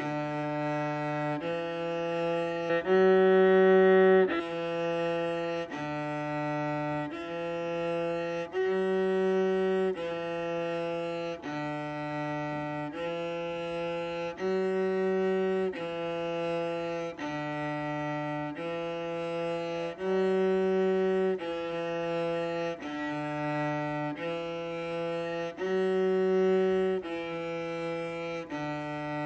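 Solo cello bowed at a slow, even pace: one sustained note a little over a second long after another. The notes follow a short phrase that repeats every five to six seconds, with one louder note in each round.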